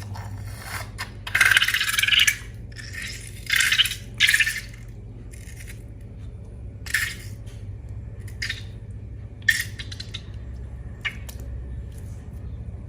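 Hands-on slime-making noises: short rattling, crinkling scrapes in bursts of a second or less, two loud clusters in the first few seconds and a few fainter ones later, over a steady low hum.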